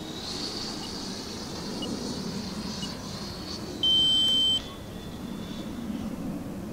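The 105 mm electric ducted fan of a Viperjet MK2 RC jet whining high and steady in flight. A faint short pip comes about once a second early on, and a loud steady electronic beep lasting under a second sounds about four seconds in.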